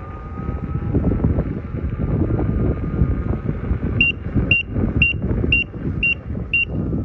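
Veteran Sherman electric unicycle ridden at speed: heavy wind rumble on the microphone with tyre noise, and a faint steady motor whine. About four seconds in, the wheel beeps six times, about two beeps a second: its speed warning as it nears its tilt-back speed.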